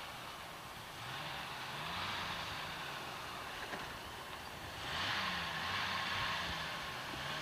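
Jeep engines labouring at low speed as the Jeeps crawl over rock ledges on a trail, the engine note slowly rising and falling as the throttle is worked. About five seconds in, the sound swells and a hiss comes in over the engine.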